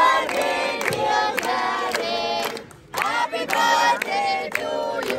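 A crowd of adults and children singing together, with hand-clapping. The singing breaks off briefly a little before three seconds in, then resumes.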